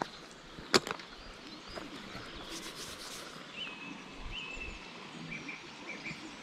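The lid of a small plastic bait jar clicks sharply once, about a second in, followed by brief rustling. Through the second half a bird chirps repeatedly in the background.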